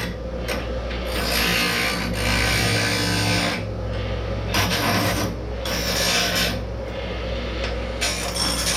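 Angle grinder grinding steel, in passes of a second or two with brief lifts off the work, its motor humming steadily underneath.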